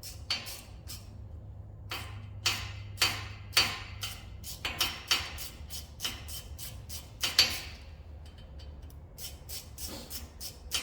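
Hand ratchet clicking in short bursts as an 8mm bolt is broken loose and backed out, with a few sharper metallic clicks and, near the end, a quicker run of light ticks.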